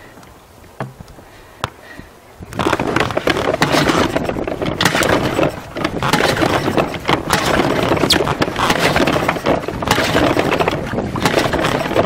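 Loud, irregular rustling and scraping close to the microphone, starting about two and a half seconds in: the camera rubbing against clothing as the person moves.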